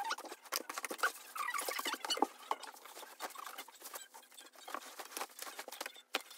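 Clothes rustling and being handled as laundry is sorted by hand into a mesh hamper and a plastic laundry basket, with scattered light clicks and knocks.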